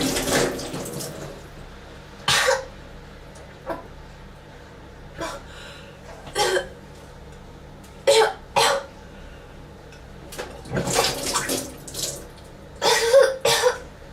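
A person retching and gagging as if vomiting, in short wet heaves and coughs every second or so, with a denser run of heaves near the end.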